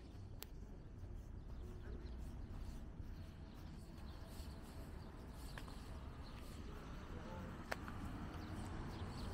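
Quiet city street ambience: a steady low rumble, with a few faint sharp ticks and chirps, the clearest one near the end.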